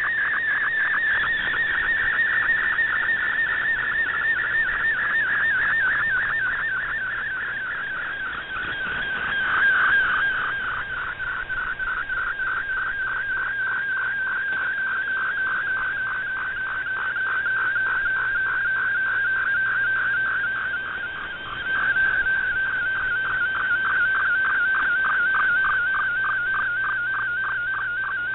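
Shortwave MFSK picture transmission received over an AM radio: a single warbling tone around one and a half kilohertz, swept in a fast, even rhythm as each line of the image is sent, over faint static. The signal sags briefly twice with fading.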